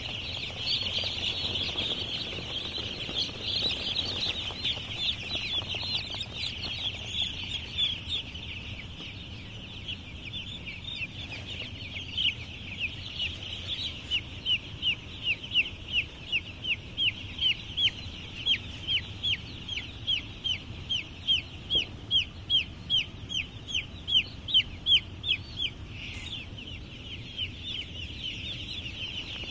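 A large flock of young chicks peeping in a dense, steady chorus. From about halfway through, a single chick held close by gives loud repeated falling peeps, about two or three a second, stopping near the end.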